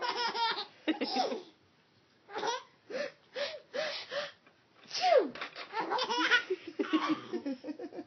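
A baby girl giggling and laughing in short, repeated bursts, set off by sneezes. There is a short pause near the start, then a denser run of laughs in the second half.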